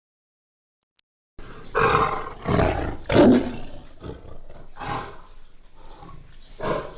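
Tiger roaring, a series of rough, deep roars and growls starting about a second and a half in.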